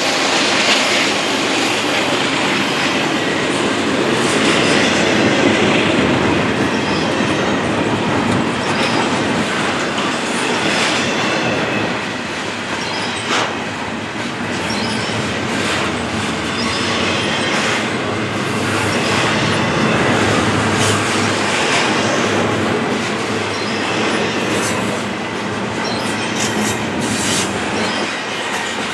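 Westbound intermodal freight train rolling past: a steady rumble of wheels clacking over rail joints, with intermittent high wheel squeal.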